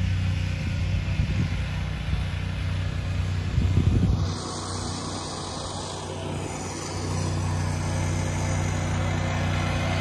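An engine running steadily with a low, even hum. It drops back about four seconds in and picks up again about seven seconds in.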